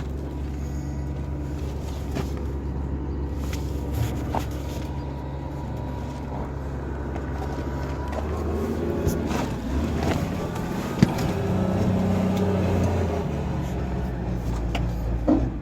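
Steady low hum of an engine running, with a few light knocks and handling noises scattered through.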